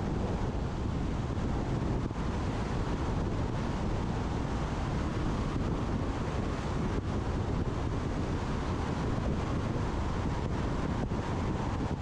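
Steady wind noise on a roof-mounted GoPro's microphone as an electric Tesla Model X drives at road speed, with low road noise underneath and no engine sound.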